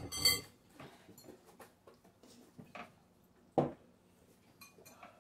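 Glass bowls and drinking glasses handled on a table: a louder clatter right at the start as a bowl is set down, then scattered light clinks and knocks, with one sharper knock about three and a half seconds in.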